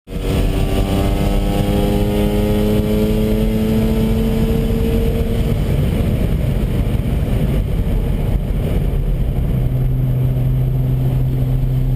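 Mazda RX-7 FD3S's twin-rotor 13B rotary engine running under way, its pitch climbing slowly for about five seconds over a constant roar of wind and road noise. It then turns rougher and settles into a steady lower drone about ten seconds in.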